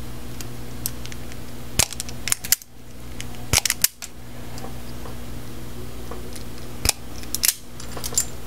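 Wire strippers snapping shut as insulation is stripped from the ends of thin hookup wires: several sharp snaps in small clusters, with a pause of about three seconds in the middle. A steady low electrical hum runs underneath.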